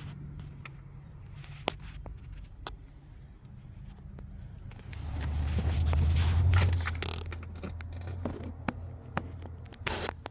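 A motor vehicle's low engine rumble swells for a few seconds around the middle and then fades, as if passing nearby, with scattered clicks and scrapes throughout.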